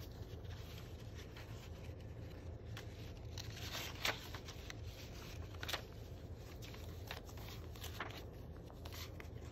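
Paper rustling and crackling as the pages and paper inserts of a handmade junk journal are handled and turned, with a sharper paper snap about four seconds in. A low steady hum sits underneath.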